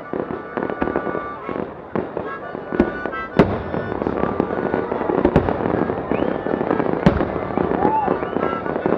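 Aerial fireworks display: several sharp bangs of shells bursting over continuous crackling, the loudest bang about three and a half seconds in.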